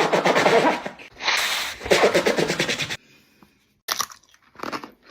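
Two long, loud noisy stretches over the first three seconds, then, after a short hush, a few sharp crunches of crunchy food being bitten and chewed close to the microphone.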